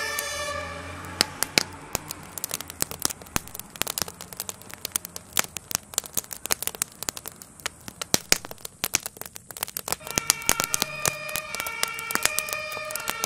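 A burning garden shed crackling and popping: sharp, irregular cracks, some of them loud. A two-tone emergency siren fades out in the first second and comes back from about ten seconds in.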